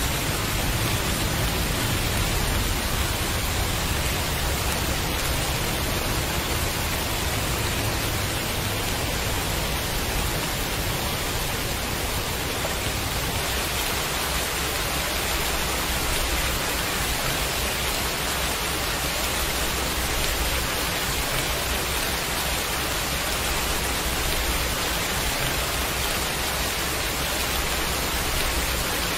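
Heavy rain falling in a steady, even hiss, with no thunder or separate drops standing out.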